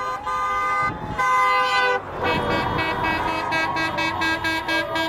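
Car horns honking in long held blasts, one after another, over passing road traffic.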